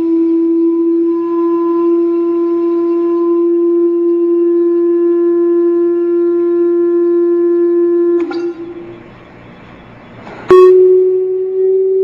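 Steady tone from a frequency generator driving a sand-covered Chladni plate, holding one pitch for about eight seconds. It cuts off with a click, then after a short quieter gap a second click starts a slightly higher tone that slowly rises in pitch.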